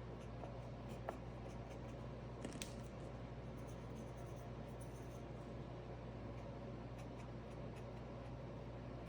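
Faint paintbrush strokes scratching and dabbing paint onto a painting surface while a background is blended, with a brief louder scratch about two and a half seconds in, over a steady low hum.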